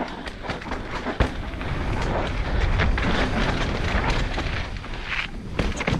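Enduro motorcycle ridden hard over a rocky trail: the engine running under throttle amid a constant clatter of knocks from rocks and the bike's chassis, with one sharp knock about a second in.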